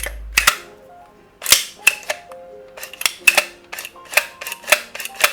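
The mechanism of a partly reassembled APS CAM870 gel blaster shotgun being worked by hand to test its movement: a dozen or so sharp clacks, unevenly spaced, some in quick pairs.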